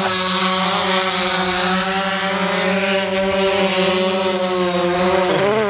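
DJI Phantom 4 quadcopter's motors and propellers humming steadily as it descends to land, with the pitch wavering and dipping near the end.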